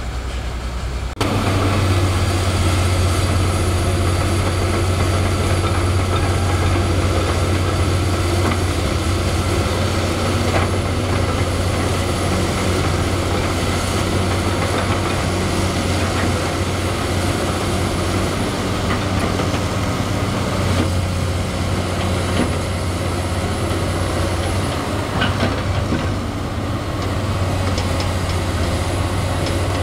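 Komatsu PC200 hydraulic excavator's diesel engine running steadily under digging load, getting louder about a second in, with a few faint knocks of the bucket on rock and stones.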